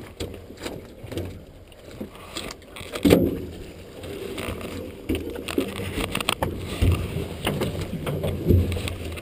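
Muffled, irregular knocks and thumps of a salmon net being picked aboard a small fishing boat, the loudest thump about three seconds in, dulled by a waterproof camera case.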